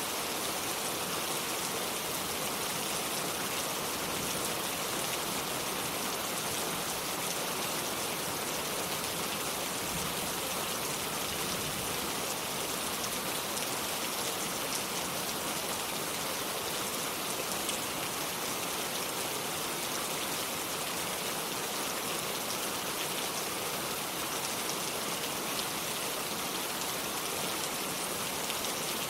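Steady rain falling, an even hiss with fine pattering of drops and no thunder.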